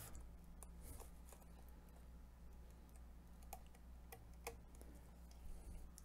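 Faint, scattered light clicks, about seven of them, from a small precision screwdriver and gloved fingers working inside an opened MacBook Pro's aluminium chassis, over a low steady hum.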